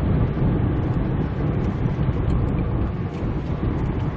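Steady in-cab driving noise of a Kia Bongo 3 truck under way: a low rumble of the diesel engine and tyres on the road.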